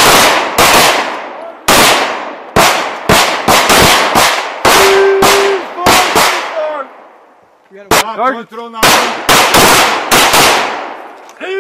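Semi-automatic pistol fire: about twenty sharp shots in quick pairs and strings, each with a short echoing tail. The firing pauses for about a second shortly after the middle, then a final fast string follows.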